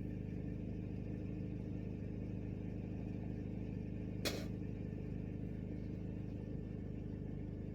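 Steady engine and road drone heard inside the cabin of a moving 2010 Chevrolet Equinox, with one short sharp click a little past the middle.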